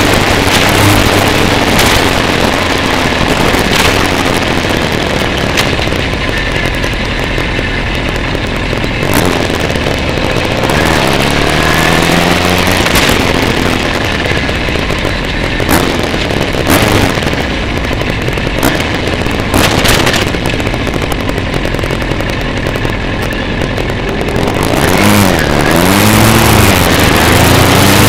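Motorcycle engine running on the move under heavy wind noise on the microphone, its pitch rising as it accelerates about eleven seconds in and climbing and dropping through gear changes near the end.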